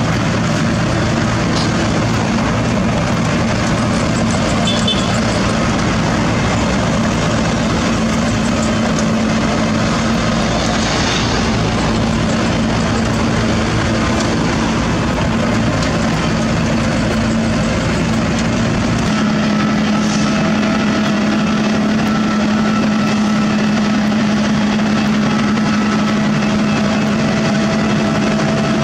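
Sakai ER501F cold milling machine at work: its diesel engine running under load and the cutting drum grinding up the asphalt surface, a steady, loud mechanical din. About two-thirds of the way through the deep rumble drops away and a steady engine hum stands out.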